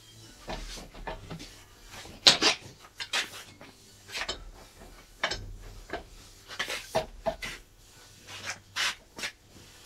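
Irregular rubbing and scraping with a few sharper metal knocks: a rag wiping the air/hydraulic ram, and a long wrench being fitted to the ram's top nut and turned to tighten it. The loudest knock comes about two seconds in.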